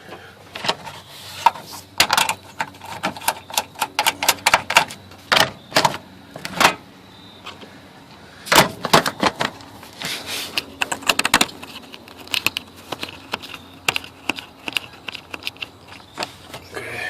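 Irregular metallic clicks and clinks, coming in clusters, from screws and tools being handled while the radiator's top cover and fan are fastened back in place.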